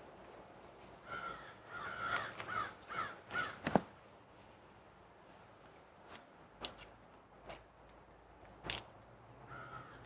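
A bird calling in a quick run of short, repeated calls during the first few seconds, and twice more near the end. Between the calls come sharp clicks and taps from hands handling the bag's fittings; the loudest click follows just after the run of calls.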